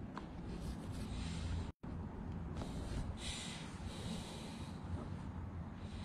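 A person breathing audibly, with a long hissing breath out about halfway through, over a steady low hum. The sound cuts out completely for a split second just before the two-second mark.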